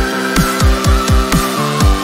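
Electronic background music with a steady kick-drum beat under held synth chords and a high synth line.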